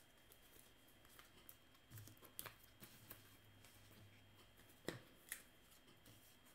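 Faint handling of a stack of paper baseball cards being sorted by hand: soft rustle with a few sharp card ticks and taps, the loudest about five seconds in.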